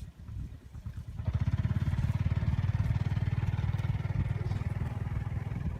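A small engine starts up about a second in and then runs steadily with a fast, even low pulsing.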